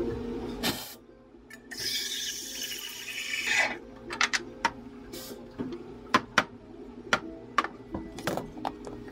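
Café drink preparation with a steel milk pitcher: about two seconds of pouring hiss near the start, then a run of light clinks and taps on metal and the counter, over a low steady hum.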